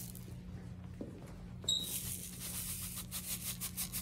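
Faint handling noises on a classroom table: a light knock about a second in, then a sharper click with a brief high squeak and soft rustling, over a steady low room hum.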